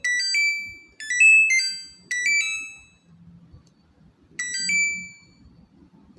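Samsung washing machine control board's buzzer playing its electronic chime melody. It plays short phrases of a few stepped beeping notes, each ending in a held note that fades. Three phrases come about a second apart, then there is a pause, then another. The tune is the board responding after the jumper repair to its start button.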